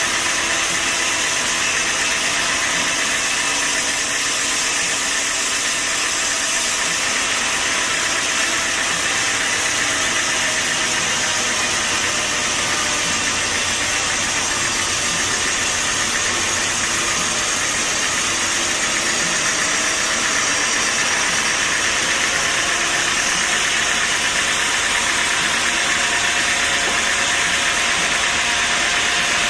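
Sawmill machinery running steadily: a loud, even, hiss-like machine noise that does not change.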